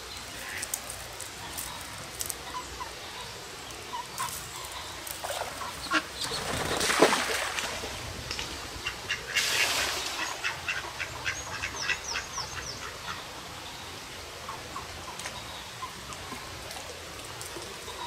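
Mallard ducklings peeping, short high calls scattered throughout, with a quick run of chirps about ten to thirteen seconds in. A brief rushing noise swells and fades about seven seconds in, the loudest moment.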